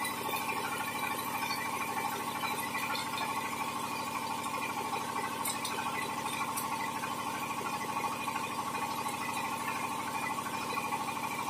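Dongfeng 26 HP diesel engine running steadily while driving a 20 kW genset dynamo under the load of an arc welder, with the crackle of the stick-welding arc.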